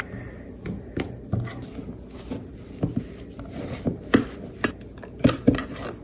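Maida flour, turmeric powder and a little milk being mixed into a dough, with irregular clinks and scrapes against the dish.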